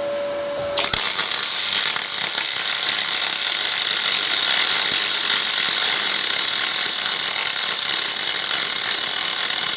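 MIG welding arc on 4 mm aluminium plate, fed with 1 mm wire from a spool gun on an R-Tech MIG180 inverter welder at about 128 amps: a steady crackling hiss that strikes up about a second in and keeps going.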